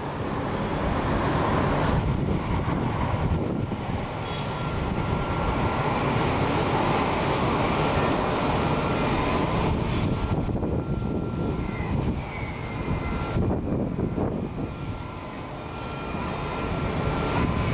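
Jet airliner engines running at taxi power: a steady rushing noise with a faint, steady high whine.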